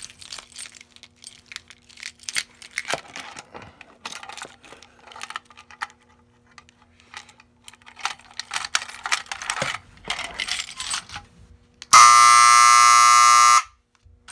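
Metal clicks and key jangling as a fire alarm pull station is opened and operated with a key. About twelve seconds in, the fire alarm sounds a loud, steady buzzing blast for under two seconds, then cuts off.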